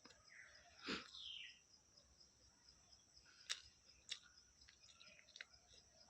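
Near silence with a faint steady high hiss, a few sharp faint clicks and one short falling chirp.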